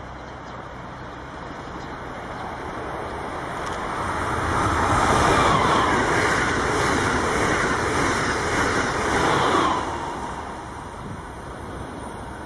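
Amtrak Acela Express electric trainset passing at speed. The rush of wheels on rail builds over the first few seconds, stays loud for about five seconds, then dies away.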